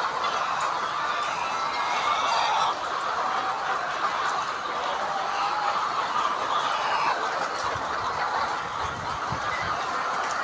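A flock of chickens in a poultry shed calling all at once: a steady, dense chatter of many overlapping clucks and cheeps.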